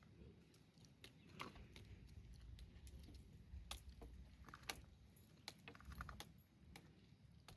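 Faint eating sounds: irregular small clicks and taps of a meal being eaten by hand from a plate, with chewing.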